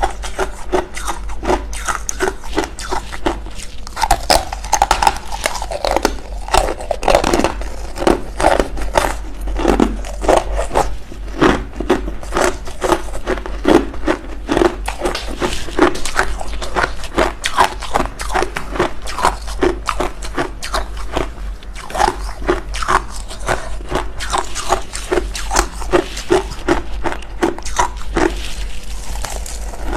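Freezer frost being bitten and chewed close to the microphone: a continuous run of rapid crisp crunches, several a second.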